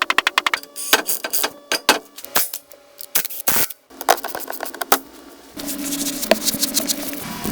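A quick run of sharp clicks, about ten a second, then scattered clacks and knocks and a short swish about three and a half seconds in. A steadier hiss with a faint hum takes over near the end.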